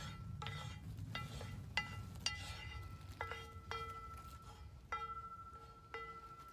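About nine light, irregularly spaced strikes, each ringing on with a clear bell-like tone, mostly at the same pitch with a lower note sometimes joining in.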